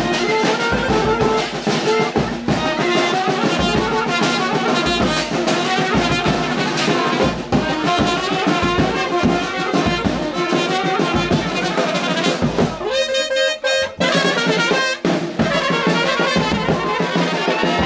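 Brass band music, trumpets and trombones over a steady drum beat, playing dance music.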